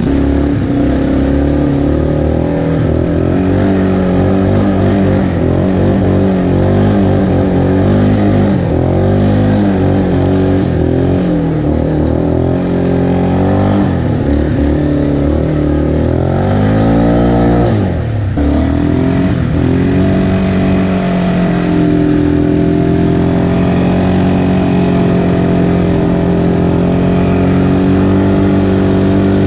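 Can-Am Outlander 400 XT ATV's single-cylinder engine running under changing throttle, its pitch rising and falling. About 17 seconds in it climbs in a rev and drops sharply, then holds a steady, higher pitch.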